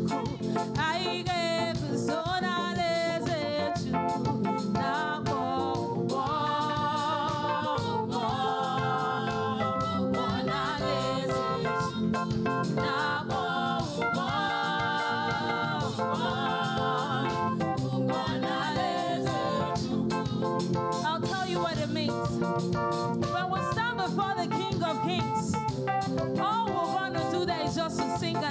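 Live gospel praise music: voices singing a praise song over a band with keyboard and a steady beat.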